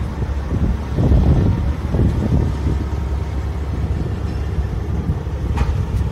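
Wind buffeting the phone's microphone: a low rumble that swells in uneven gusts.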